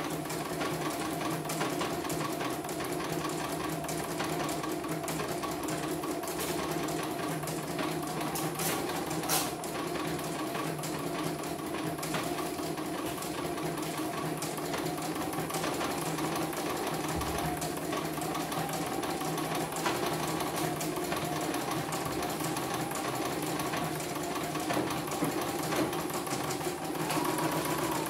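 CNY computerized embroidery machine stitching a design on a test run after servicing, a steady, fast stitching rhythm with a single sharper click about nine seconds in.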